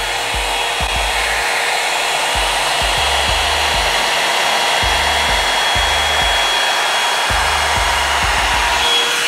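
Revlon One-Step hair dryer brush running on high: a steady rush of blown air with a thin high whine, as it is drawn through a section of curly hair.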